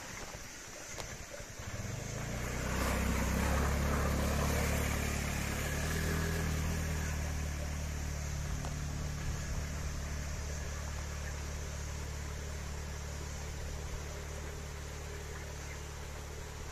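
Small motorcycle engine running in low gear as it pulls out of a stream and climbs a muddy dirt trail, loudest a few seconds in and then slowly fading as it moves away.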